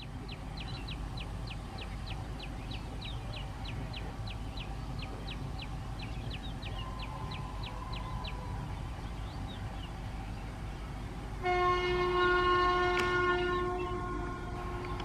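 Horn of a WAP-7 electric locomotive sounding one long blast of about three seconds, several steady tones together, near the end, over the low rumble of a passing train. A bird chirps about three times a second through the first half.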